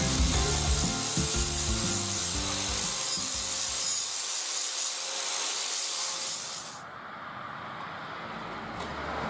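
Steady abrasive hiss of a tool working the metal of a muffler's inner silencer, with a thin high whistle over it. It cuts off suddenly about seven seconds in, leaving a fainter rasp.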